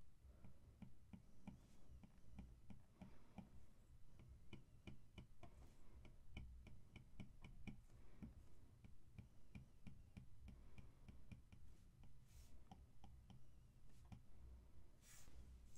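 Faint, rapid ticking of a plastic stylus tip tapping on an iPad's glass screen as short fur strokes are drawn, several taps a second.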